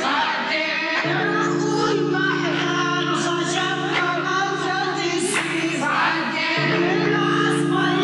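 Music from a DJ set over a sound system: held low chords with a wavering sung vocal over them, the chord changing about a second in and again near the end.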